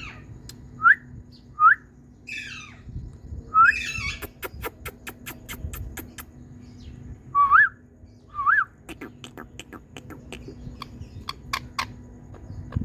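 Indian ringneck parakeet calling: several short, sharply rising whistled notes and a couple of harsher chattering calls, with runs of quick sharp clicks between them.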